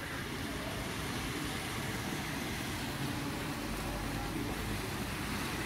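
Rain falling steadily on a flooded street: an even hiss of rain and running water.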